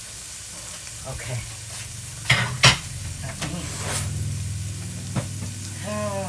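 Kitchen utensils and dishes being handled, clicking and scraping, with two sharp clacks about two and a half seconds in, over a steady low hum.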